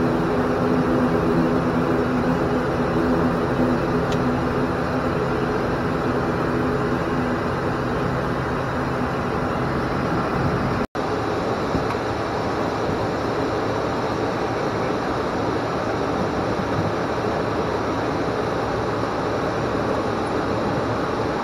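Steady cabin noise of an ATR 42-500's twin turboprops in the cockpit: a droning propeller hum over a rushing hiss. The hum fades over the first ten seconds, the sound cuts out for an instant about eleven seconds in, and afterwards only the steady rushing noise remains.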